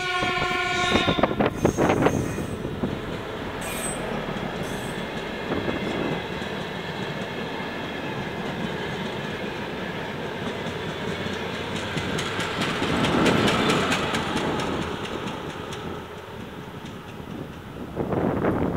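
DR1A diesel multiple unit passing at about 45 km/h while still slowly accelerating from a stop. A horn sounds for about a second at the start, the crew's greeting. Then come the running engine and the wheels clicking over the rail joints, loudest partway through as the cars go by.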